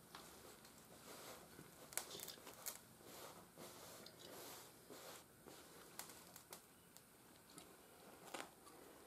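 Faint scratching and rustling of a piece of charcoal being drawn along buckskin to trace a cloth shirt pattern, with hands rubbing the fabric flat; a few sharper little clicks are scattered through it.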